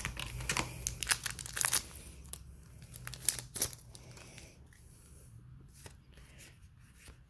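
A foil Dragon Ball Super Card Game booster pack wrapper being torn open and crinkled by hand: a run of sharp crackles over the first few seconds that thins out after that.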